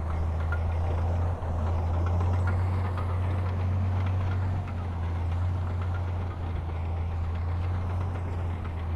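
Diesel engine of heavy earthmoving machinery running steadily, with a deep, constant drone.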